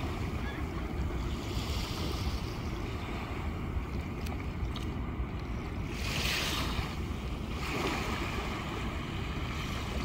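Small waves lapping and washing up on a sandy shore, the wash swelling up about two seconds in and again around six and eight seconds, over a steady low rumble of wind on the microphone.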